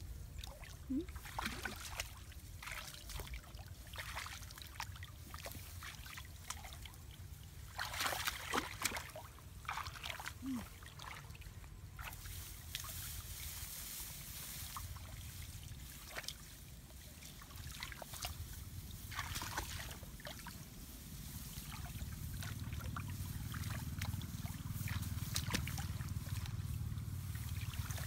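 Hands splashing and sloshing in shallow muddy paddy water while groping for fish: scattered small splashes and trickles. A low rumble builds in the second half.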